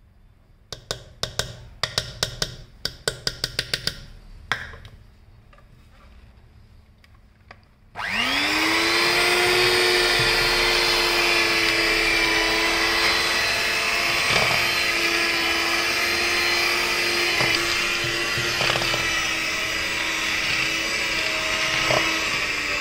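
A quick run of sharp taps, then an electric hand mixer switches on about eight seconds in: its motor whine rises quickly to speed and then runs steadily as the beaters churn cocoa powder into whipped butter and sugar in a steel pot.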